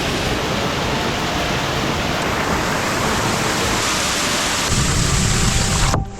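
Steady rush of water from a cold hill stream, splashing and pouring like heavy rain; it cuts off abruptly near the end.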